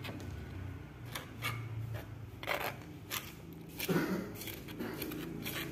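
Metal spoon scraping and stirring thick rice-flour batter in an earthenware mortar, with a series of short scrapes and clinks against the clay.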